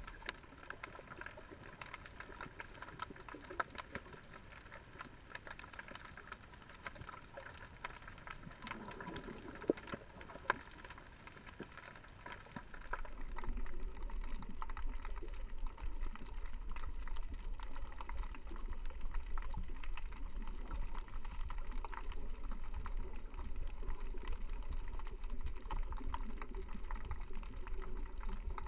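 Underwater sound picked up by a GoPro Hero 3 Black in its waterproof housing: a muffled water hiss scattered with sharp crackling clicks. About 13 seconds in it changes abruptly to a louder recording with a low rumble under the clicks.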